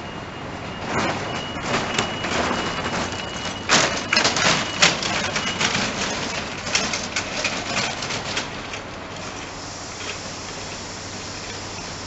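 Train rolling into the station under the shed roof: a run of sharp clattering wheel knocks over rail joints and points, loudest about four seconds in, with a thin steady high tone over the first few seconds. Near the end the clatter gives way to an even hiss.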